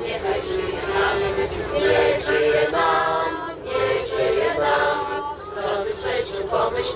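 A group of women singing together in chorus inside a coach, several voices holding and changing notes.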